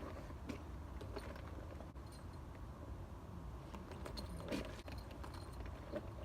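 Faint clinking and rustling of work gear being handled and put on, over a low steady rumble, with a slightly louder clatter about four and a half seconds in.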